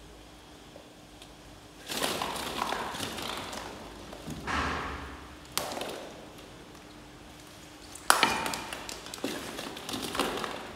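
Hollow plastic ball-pit balls and toys clattering and knocking as a baby monkey scrambles through them, in several bursts of rattling. A sharp knock about eight seconds in is the loudest.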